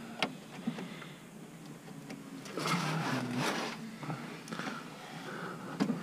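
Handling noise as hands push wire connectors onto a radiator fan switch by feel: a few sharp clicks and a stretch of rustling and scraping from the sleeve and hands in the engine bay, loudest about halfway through.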